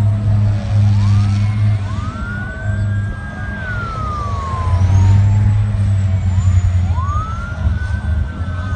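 Fire truck sirens wailing, twice rising, holding and then slowly falling, over a loud steady low drone of engines.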